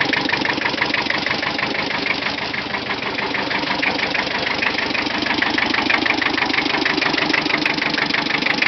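1973 Kubota L185DT 4x4 tractor's 18-horsepower diesel engine running steadily with a rapid, even firing beat.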